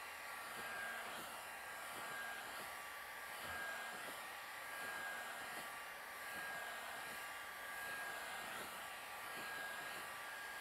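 Electric Makita heat gun blowing hot air: a steady rush of airflow with a faint high fan whine, swelling and easing every couple of seconds as it is swept back and forth across two seam samples.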